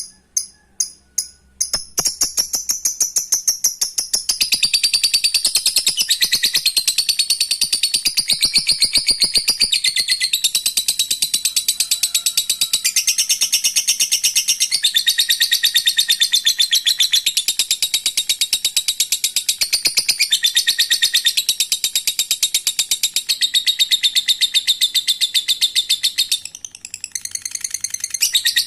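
Lovebird ngekek song: a few separate sharp high notes, then, from about two seconds in, a long, unbroken, very rapid high-pitched chatter. It falters briefly near the end and then picks up again.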